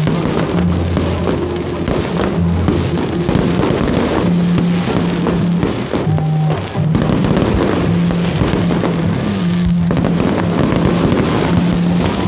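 Fireworks going off in a rapid string of bangs and crackles, mixed with loud music that has a heavy bass line.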